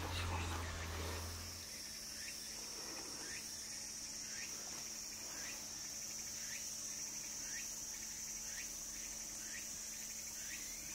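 Insects buzzing with a steady high-pitched drone, with short faint calls repeating about once a second. A low hum cuts off near the start.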